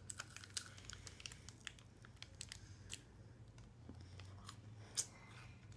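Faint scattered crackles and clicks of a Lion chocolate bar, a crunchy caramel-and-wafer bar, being bitten into and chewed, with its wrapper crinkling; one sharper crack about five seconds in.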